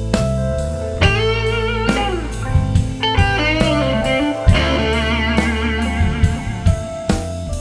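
Live blues-rock band playing an instrumental break: an electric guitar plays a lead line of held, bent notes with wide vibrato over bass and a steady drum beat.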